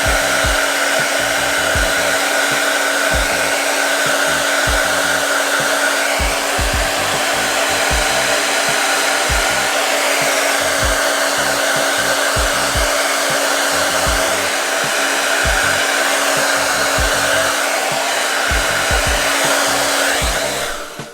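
Hair dryer blowing on its cool-air setting: a steady rush of air with a steady hum, cutting off near the end.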